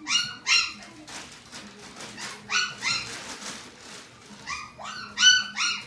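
Miniature dachshund puppy yipping: short high-pitched yips, a pair at the start, another pair midway and a quick run of four near the end.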